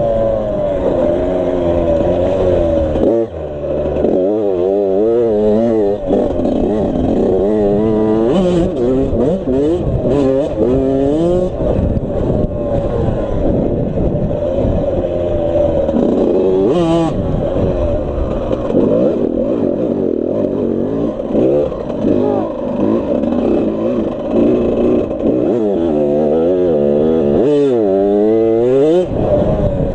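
Suzuki RM85 85cc two-stroke dirt bike engine being ridden hard, its pitch swinging up and down again and again as the throttle is opened and closed.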